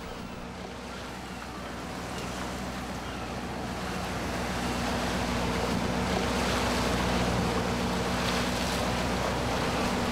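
A fishing boat's engine running steadily under the rush of water and wind along the moving hull, the rush growing louder a few seconds in.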